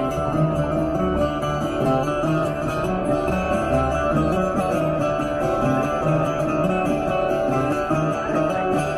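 Plucked string instrument played flat across the lap, giving a continuous, rhythmic tune with a repeating bass pattern under quicker higher notes.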